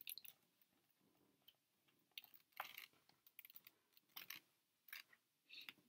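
Near silence, broken by a few faint, short clicks and rustles from a picture book being held up and handled.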